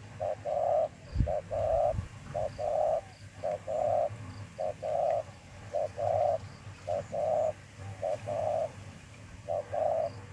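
A dove cooing over and over in even phrases, each a short note followed by a longer one, about once a second. This is the insistent, fight-ready cooing of a territorial dove.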